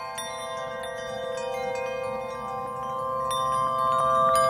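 Bell-like chiming notes over a held chord, slowly swelling in loudness: an intro music sting.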